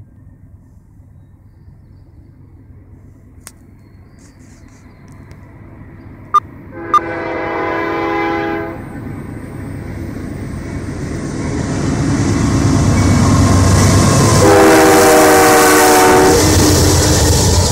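CN GE C44-9W freight locomotive approaching and passing, sounding its Nathan K3L air horn: a chord blast about seven seconds in and a second about fifteen seconds in. Between and after the blasts the engine and wheel rumble builds as the train draws near, and two sharp clicks come just before the first blast.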